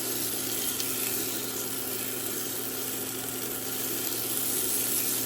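Chicken and onions frying in the cooking robot's pot: a steady sizzling hiss, with a low steady hum underneath.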